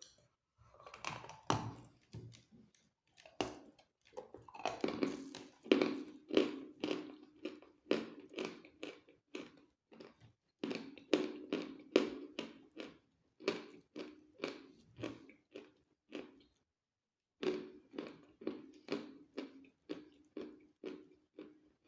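Close-miked chewing and crunching of edible chalk: steady crisp bites and chews, about two to three a second, with a short break about three-quarters of the way through.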